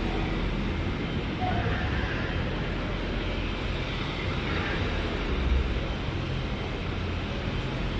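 Steady city ambience: a low rumble of traffic with an even noise wash and faint scraps of distant voices.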